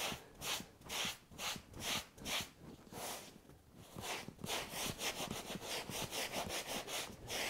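Two damp sponges, one of them abrasive, scrubbing back and forth over freshly grouted brick veneer in a rhythmic rasping rub. The strokes come about two a second, pause briefly near the middle, then come quicker. This is a first pass to strip heavy grout residue off the brick faces as the grout hardens.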